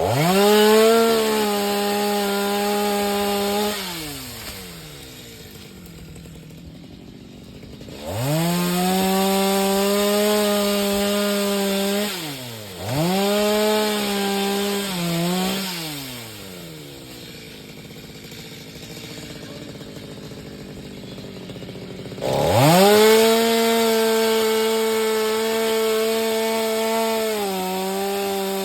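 Two-stroke chainsaw revved to full throttle four times and held there, cutting into coconut trunk wood, dropping back to idle between the cuts.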